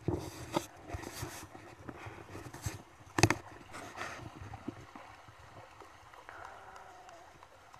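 Shallow river water splashing and sloshing as sheep wade and drink in it. There are several splashes in the first four seconds, the loudest about three seconds in, then only quieter lapping.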